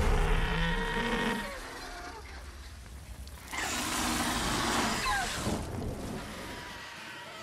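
Fantasy-film dragon sound effects: a sudden deep boom at the start, then a rushing noise. About three and a half seconds in, a dragon gives screeching cries that fall in pitch.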